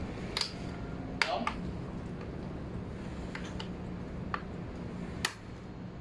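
Light metal clicks and clinks, about seven scattered taps, as parts of a scooter's rear drum brake are handled and fitted by hand. A steady low hum runs underneath.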